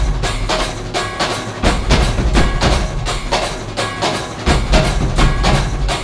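Music with a quick, steady drum beat and deep bass.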